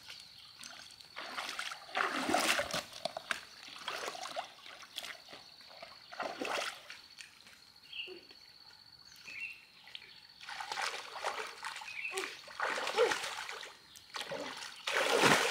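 Shallow muddy pond water splashing and sloshing in irregular bursts as a person wades through it and plunges their hands in, groping for fish.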